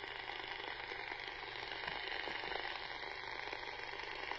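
Eurosonic EU40 27/81 FM handheld CB radio's speaker hissing with the squelch open: steady receiver static, slowly getting louder.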